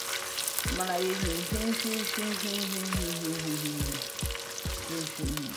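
Sliced onions sizzling and frying in hot oil in a pot, stirred with a spatula. An Afrobeat instrumental plays underneath, with a bass line and a steady beat.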